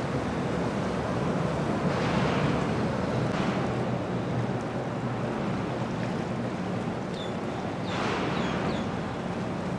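Boat engines running at low cruising speed with the wash and splash of churning wake water, and wind on the microphone. The water noise swells and eases every few seconds, and a few short high chirps come near the end.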